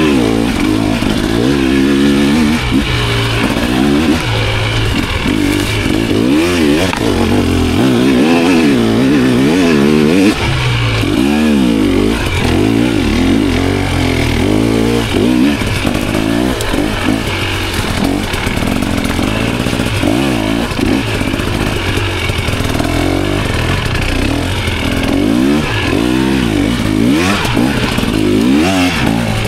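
2024 KTM 300XC two-stroke dirt bike engine, fitted with a 9-ounce clutch weight, being ridden. The revs rise and fall over and over, every second or two, as the throttle is worked.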